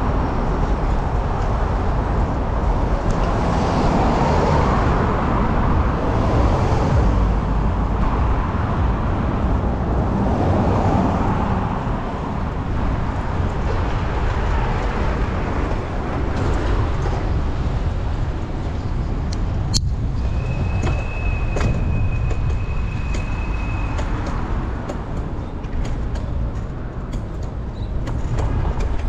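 City street traffic and road noise heard from a moving bicycle, with a low rumble throughout. A sharp click comes about twenty seconds in, followed by a thin, steady high tone lasting about three seconds.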